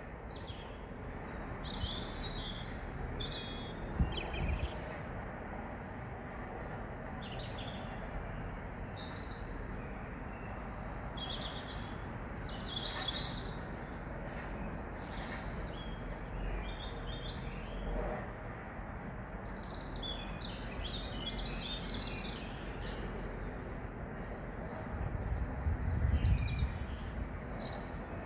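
A songbird singing a long run of short, high twittering phrases with brief gaps between them, over a steady low background hum. A low rumble swells briefly about 25 seconds in.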